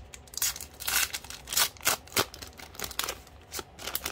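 Trading-card flow-pack wrapper being opened: a rapid run of sharp crinkles and rips, loudest from about half a second to two and a half seconds in.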